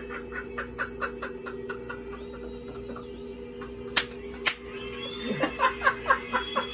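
A person giggling in quick short bursts, with two sharp smacks about four seconds in, then a stronger run of laughter near the end.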